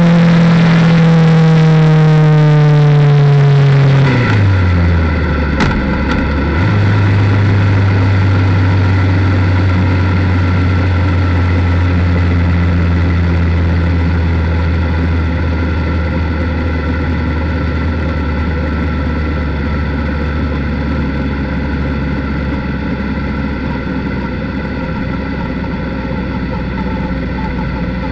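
Motorcycle engine heard from an onboard camera, its revs falling steadily as the bike slows for about four seconds, then dropping further. There is a short sharp click about five and a half seconds in. The engine then runs at low, steady revs at pit-lane speed, with wind noise on the microphone.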